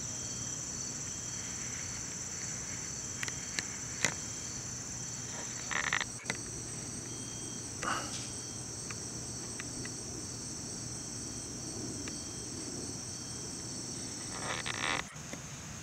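A steady, high-pitched chorus of insects trilling without a break. Two brief louder chirps come through, about six seconds in and near the end.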